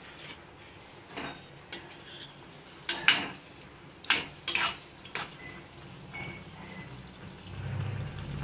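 Metal spoon stirring diced potatoes in a steel kadai, scraping and clinking against the pan several times.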